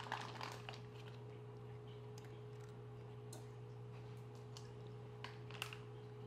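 Cat crunching a piece of dry kibble: a quick cluster of small crunchy clicks at the start, then a few scattered clicks. A faint steady hum sits underneath.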